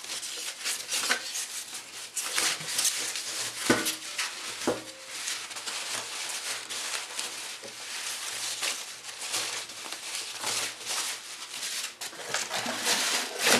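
Plastic and paper wrapping rustling as it is handled, with a few sharp metallic clinks from a stainless-steel toilet-roll holder being repacked in its cardboard box.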